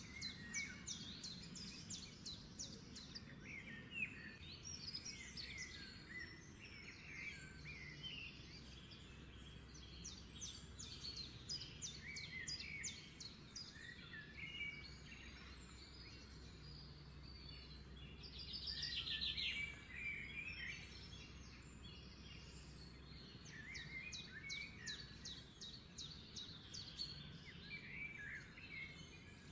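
Birds chirping and trilling over and over: quick high trills and short rising and falling chirps, with the strongest trill about two-thirds of the way through. Beneath them runs a faint, steady low hum.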